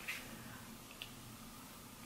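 Faint handling of a plastic utensil in a small foam cup of gravy, with one soft click about a second in, over quiet room tone.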